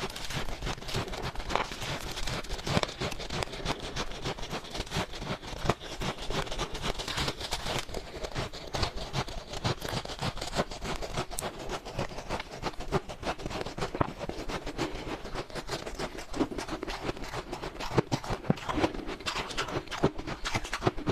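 Close-miked crunching and chewing of shaved freezer frost ice: a dense, irregular crackle of crisp, squeaky crunches from big bites.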